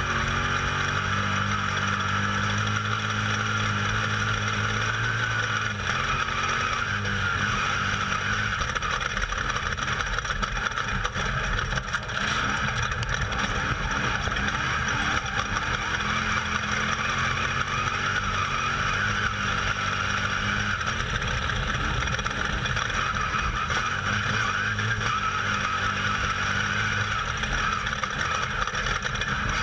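Off-road race vehicle running hard at speed, heard from on board: the engine note rises and falls under a constant loud rushing noise.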